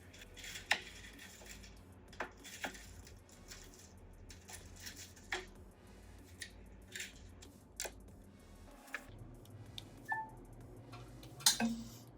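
Scattered light clicks and taps of small tools and phone parts being handled during a phone repair, about a dozen, over a faint steady low hum.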